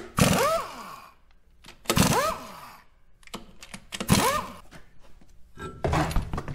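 Impact wrench run in four short bursts about two seconds apart, each a hammering clatter with the motor's pitch rising and then falling, on the lug nuts of a wheel being changed.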